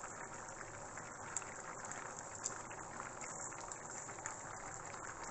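Pot of wheat and ground meat bubbling at a steady boil, with a couple of faint clicks.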